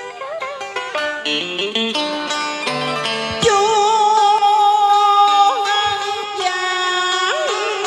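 Tân cổ music: plucked string instruments playing a melody with bent notes, joined about three and a half seconds in by a louder, held melody line with vibrato.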